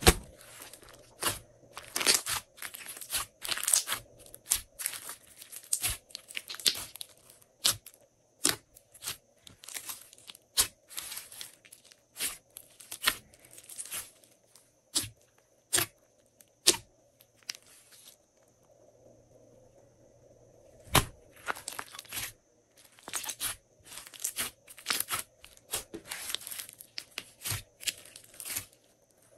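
Hands kneading and squeezing a large mass of glossy slime: irregular wet crackling and sharp popping of trapped air bubbles, with a pause of two or three seconds a little past halfway.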